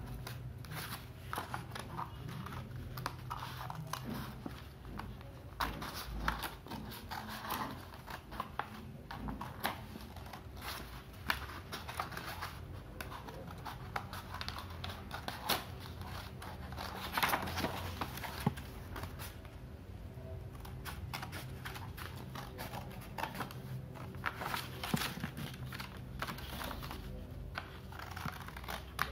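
Small scissors snipping through stiff colour paper, with the sheet rustling as it is turned and handled; short, irregular snips throughout, over a steady low hum.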